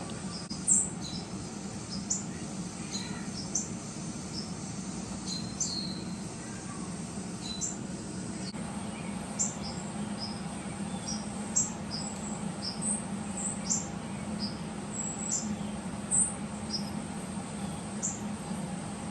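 Young Persian kittens giving many short, high-pitched squeaking mews, scattered throughout, over a steady low hum.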